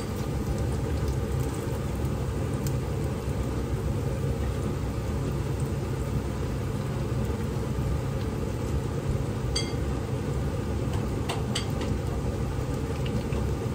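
Battered corn dogs shallow-frying in a pan of hot oil, heard as a steady low rumble, with a few light clicks and a small clink.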